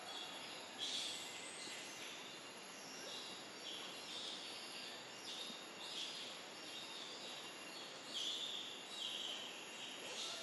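Forest ambience: a chorus of short, shrill, high-pitched buzzing calls repeating every half second or so, with louder bursts about a second in and again near the end.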